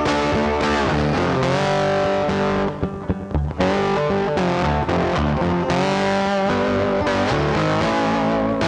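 Background music led by a distorted electric guitar, with bass underneath; it thins out briefly about three seconds in.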